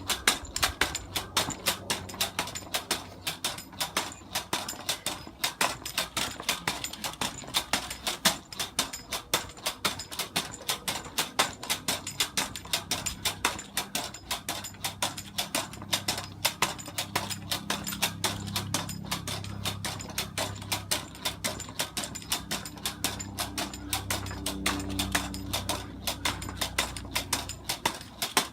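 Pogo stick bouncing steadily, with a sharp clack of the spring and foot landing about two to three times a second.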